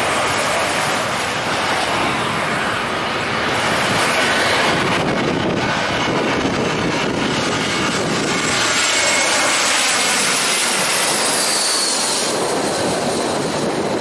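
Twin-engine jet airliner on low final approach to land: a loud, steady jet engine roar that swells a little as the plane nears, over the wash of surf.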